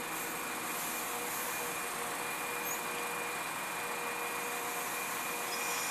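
Irish Rail 22000 Class diesel multiple unit's underfloor diesel engines running, a steady hum with a thin high whine held throughout.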